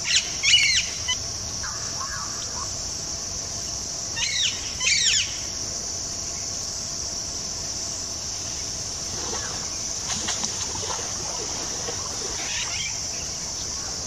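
Wild birds calling in quick runs of several notes, loudest about half a second in and again around four to five seconds, with fainter calls later, over a steady high-pitched insect drone.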